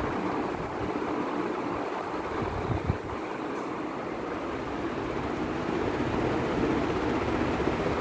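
Two National F560A1 56-inch industrial ceiling fans running, a steady whoosh of moving air, with a brief low bump near three seconds in. Their bearings have been freshly greased, and they run smoothly without bearing noise.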